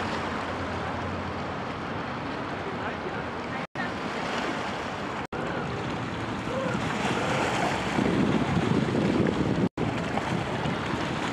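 Wind buffeting the microphone over the rush of choppy river water, louder and rougher in the last few seconds. The sound cuts out for an instant three times.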